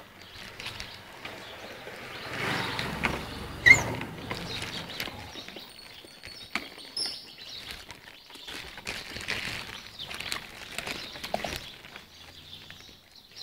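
Stray puppies eating from a plate: chewing, lapping and small clicks and scuffles of food and dish. There is one sharp knock about three and a half seconds in, and a few brief high chirps.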